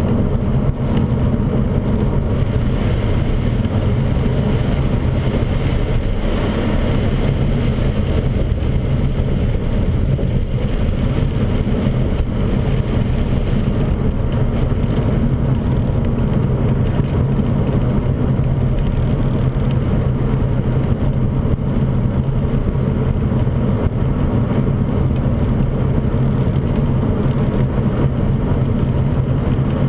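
Inside the cabin of a BMW 540, the V8 engine runs at a steady cruise, mixed with tyre noise on a wet road surface.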